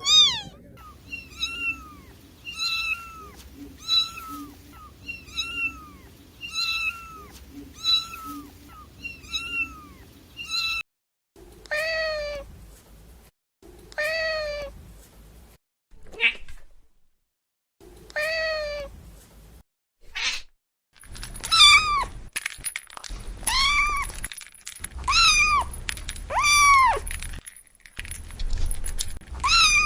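Kittens meowing over and over: short, high, arching mews about once a second, then a few lower, longer meows with silent gaps between them, and near the end quicker, louder meows close together.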